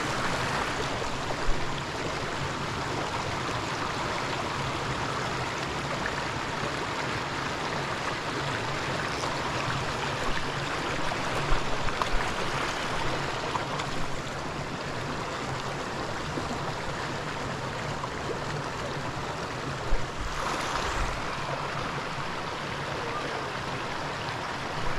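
Small mountain stream running over rocks: a steady rush of water, with a few brief knocks.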